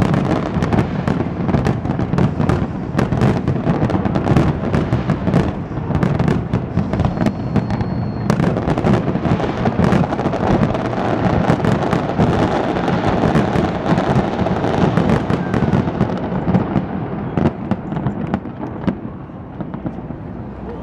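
Dense barrage of aerial fireworks: rapid, overlapping bangs and crackling, a display's final salvo, that thins out and grows quieter over the last few seconds.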